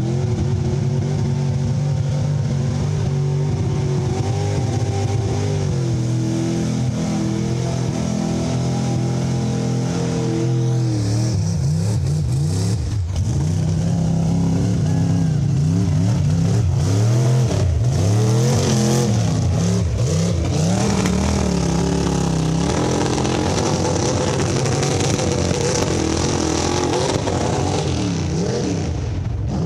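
Lifted mud truck's engine revving hard as it churns through a mud pit. The pitch holds fairly high and steady for about the first ten seconds, swings up and down in repeated surges through the middle, and steadies again near the end.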